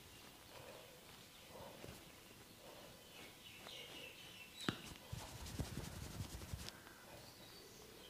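A single sharp click, then a quick run of percussive massage taps on the body, about ten a second for under two seconds. Birds chirp faintly in the background.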